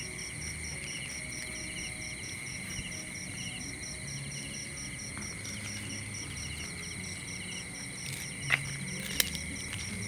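Night chorus of crickets and other insects: steady high trills and a fast even pulsing of about five beats a second. Two short sharp clicks come near the end.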